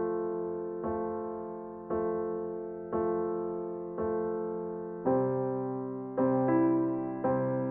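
Background music: soft piano chords struck about once a second, each fading away, with a change of chord about five seconds in.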